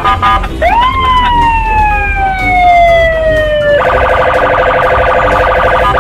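Police patrol car siren: a tone that rises quickly and then falls slowly for about three seconds, then switches to a fast warble near the end. A low rumble of passing traffic sits underneath.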